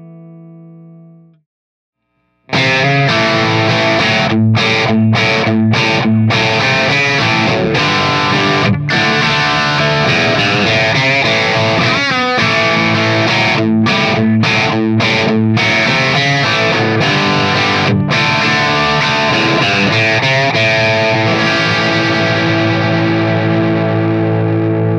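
Suhr Classic T electric guitar played through a CAA OD-100 Classic Plus 100-watt amp head. A clean note fades out in the first second or so. After a short silence comes an overdriven rock riff full of sharp stops, which ends on a chord left to ring out near the end.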